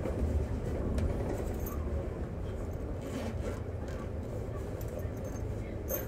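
Cabin noise of a moving double-decker bus: a steady low engine and road rumble, with a few faint rattles and ticks from the bodywork.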